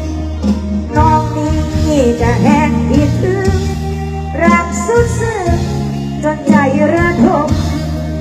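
A woman sings a Thai Isan luk thung song through a stage PA over band accompaniment, with a steady bass line under her voice, during a sound check.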